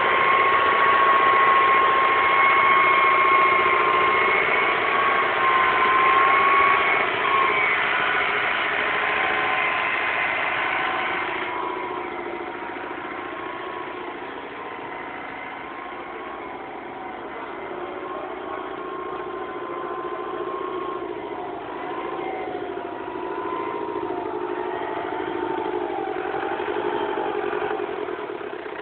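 Small farm tractor's diesel engine running under load while it drags a levelling implement over a field. The engine note is loud for the first ten seconds or so, then quieter, and its pitch wavers up and down near the end as the revs change.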